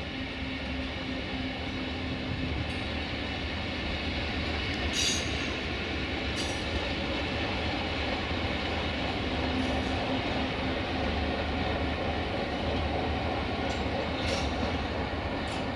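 An LDH125 diesel-hydraulic shunting locomotive runs with a steady drone while moving a rake of double-deck coaches. A few brief high-pitched wheel squeals come from the rails, about five seconds in and again near the end.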